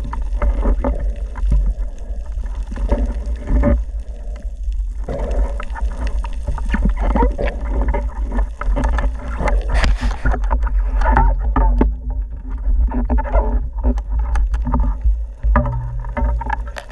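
Muffled underwater sound through a camera housing mounted on a speargun: a steady low rumble of water moving past, with many small clicks and knocks from the gun and its shooting line being handled.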